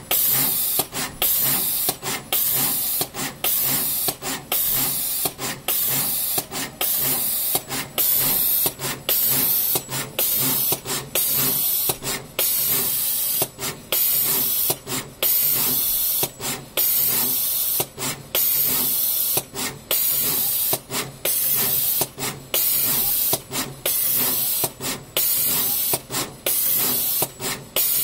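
Autoronic SMT pick-and-place machine running as it assembles a circuit board: a loud air hiss broken by brief gaps about twice a second, over a faint low machine hum.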